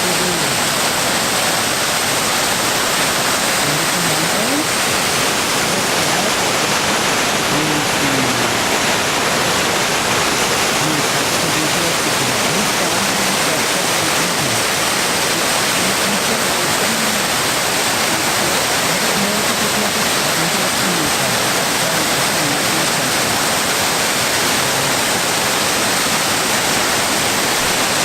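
Naga Falls, a mountain waterfall, rushing in a loud, steady, unbroken roar of falling water.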